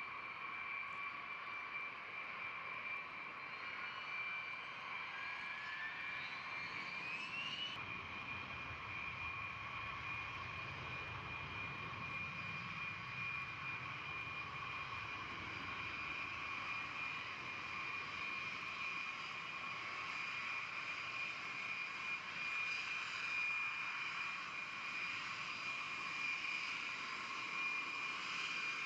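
B-52H Stratofortress TF33 turbofan jet engines running with a steady high whine. A second whine rises in pitch a few seconds in, and a low rumble swells soon after and fades again.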